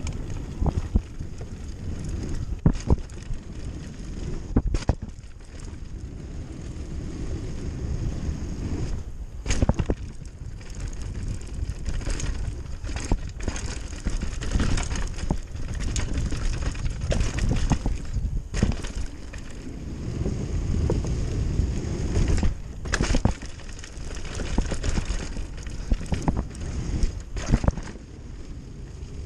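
Mountain bike running fast down a dirt trail: tyres rumbling over the ground while the bike rattles and knocks sharply over bumps and roots, with wind on the microphone.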